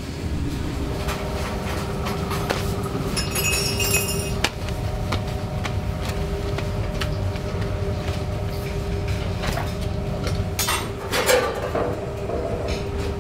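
Bakery workroom noise: a steady low rumble with a faint hum, broken by scattered clinks and knocks of metal and utensils. A brief cluster of clattering comes about ten seconds in.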